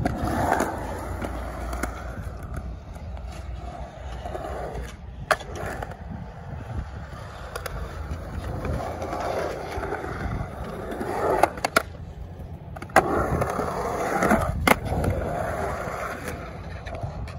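Skateboard wheels rolling over rough concrete, rising and falling with speed, with several sharp clacks of the board at intervals, two of them in quick succession past the middle.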